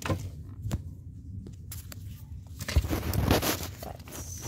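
Small toys being handled: a few light clicks and taps, then, about three seconds in, a short stretch of rustling and scraping with a dull bump as a hand works close to the microphone.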